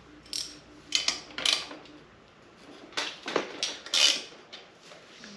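Sharp metal clinks of a wrench working on a bicycle's front-wheel axle nut as the wheel is taken off, about six clinks spread over a few seconds.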